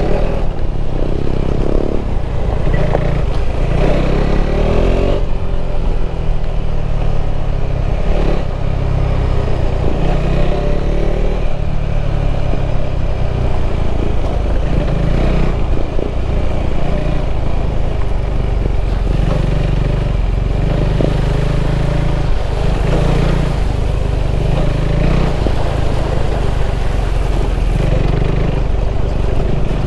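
KTM 390 Adventure's single-cylinder engine running while the bike is ridden off-road, its pitch rising and falling with the throttle. Short knocks and clatter are mixed in.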